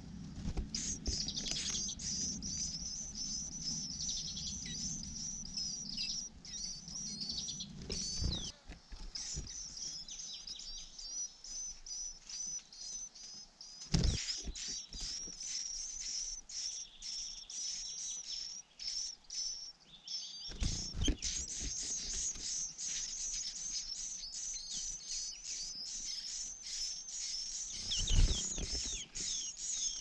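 White-eye nestlings chirping continuously with rapid, high-pitched begging calls while being fed at the nest. A few short, soft knocks come from the nest branch, one just before the parent appears to feed them.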